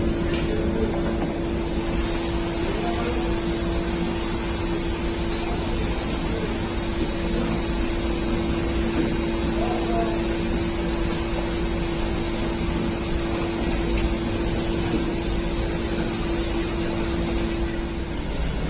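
Steady hum and whir of bakery machinery with one constant droning tone, which cuts off near the end.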